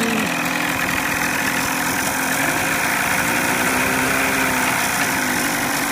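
Johnson 25 hp outboard motor idling steadily in neutral.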